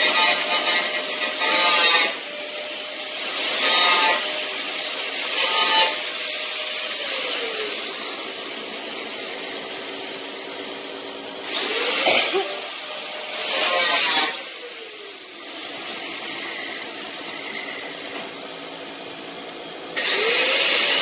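A hand-held cut-off tool run in short bursts, its whine rising as it spins up and falling away as it winds down after each burst. About a second before the end it starts running steadily as it is set to the car hood's sheet metal to cut a hole.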